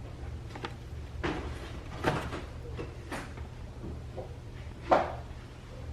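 Handling noises: a few scattered knocks and clatters, the loudest about five seconds in, over a steady low hum.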